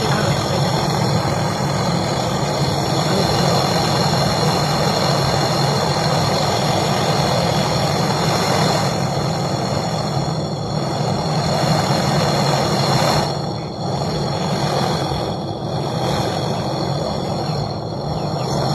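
A brazing torch flame hisses steadily while a refrigerator's gas pipe is brazed, with a few short dips in level in the second half.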